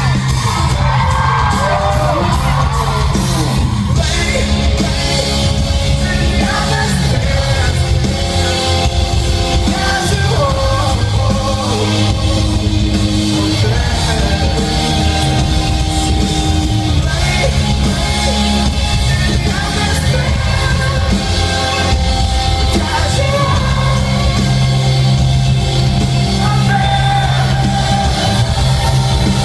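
Live rock band performing in a large hall, heard from the audience: heavy bass and drums, held keyboard notes, and a singer's lead vocal.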